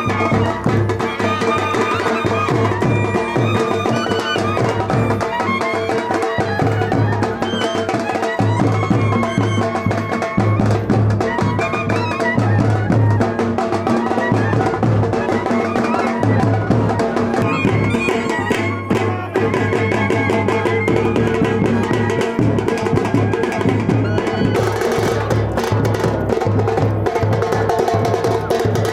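Instrumental wedding music with a steady drum beat and percussion.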